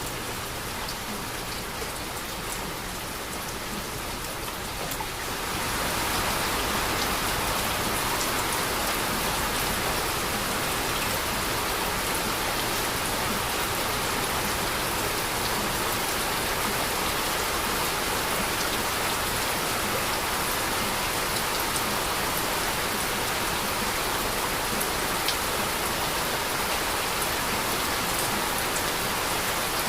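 Heavy rain falling steadily, a dense hiss with scattered sharp drop ticks, growing louder about five seconds in and then holding steady.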